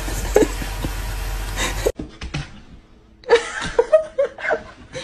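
A steady background hiss and low hum with a couple of soft knocks, cut off abruptly. Then, after a quieter second, people laughing and talking.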